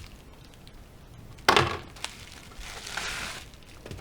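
Packaging of a replacement iPhone display being opened, with one sharp clack about one and a half seconds in and a softer rustle a little later.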